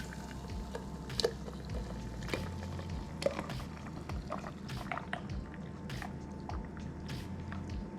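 Blended apple-and-spice cider mixture being poured through a strainer into a container: irregular drips and wet splats of liquid and pulp.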